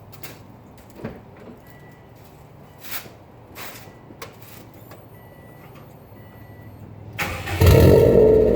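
A few faint clicks and short high electronic beeps, then about seven seconds in the starter cranks and the 2004 Subaru WRX's turbocharged flat-four catches and runs loud through a catless straight-pipe exhaust.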